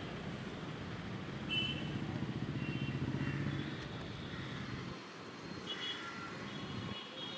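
Road traffic: a steady rumble of passing cars and motorbikes, with a few brief high clinks over it.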